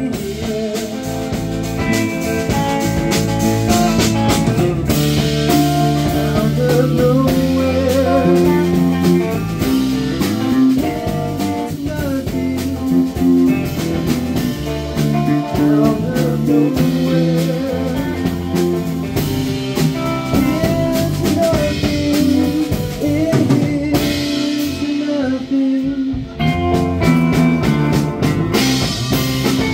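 Live band playing a blues-rock song: electric guitar, bass guitar, keyboard and drum kit.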